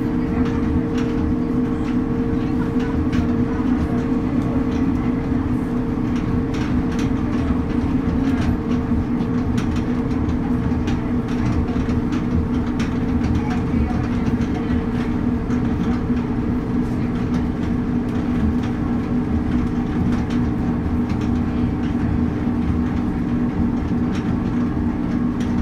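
Diesel railbus running along a branch line, heard from the driver's cab: a steady engine drone with the wheels clicking over the track.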